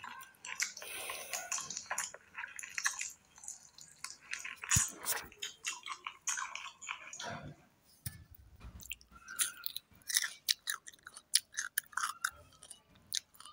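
Chewing of rice and mutton curry with crunching bites of raw cucumber: wet mouth sounds and crisp clicks, coming thick and fast in the last few seconds.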